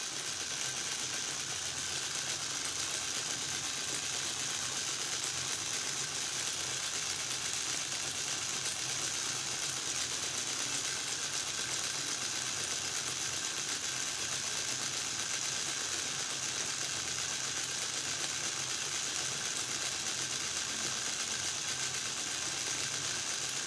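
Small battery-powered electric motor running steadily, turning a model windmill's lantern-wheel gearing and plastic propeller blades, which set up a steady high whirr.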